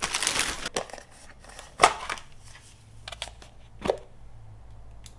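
Thin plastic bag crinkling as a plastic paintbrush washer is pulled out of it. Then come a few sharp plastic clicks and knocks as its snap-on lid is opened and handled; the loudest click falls just under two seconds in.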